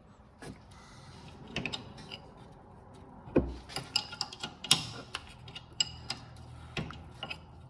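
Socket ratchet clicking in short irregular spurts with metal tool knocks while undoing a rear brake caliper bolt; one heavier knock about three and a half seconds in.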